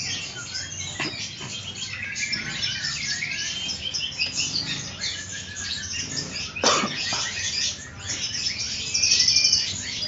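Many caged songbirds chirping and singing at once in overlapping calls and trills, with a brief clatter about two-thirds of the way through.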